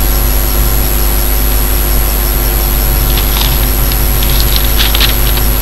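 Constant loud background hum and hiss with several steady tones, and a few faint scratchy crackles in the second half.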